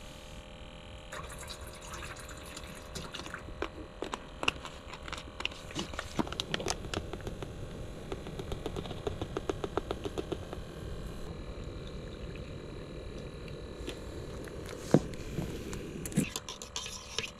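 Camp cooking gear and a packet being handled: a long run of small clicks and rattles, easing off about two-thirds of the way through, then one sharp click near the end.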